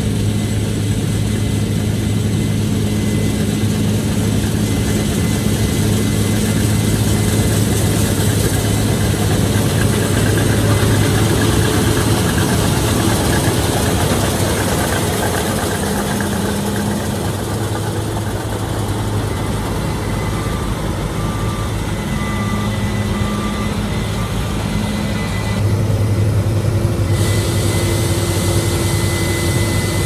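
Case combine harvester running steadily while cutting soybeans, its diesel engine giving a deep, even drone over the noise of the threshing. It grows louder near the end as the combine comes alongside a grain cart and tractor to unload.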